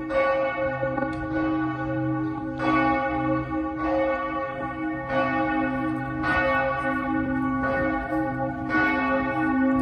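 Church bells ringing, a fresh stroke about every second and a quarter over the steady hum of the bells still sounding.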